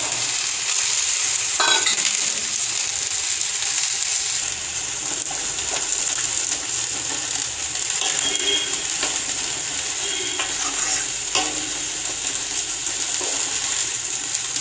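Steady sizzling hiss of cooking on a gas stove: sliced okra sautéing in oil beside a tamarind curry at the boil. A ladle stirs and scrapes the curry in a large iron kadai, knocking sharply against the pan a couple of times.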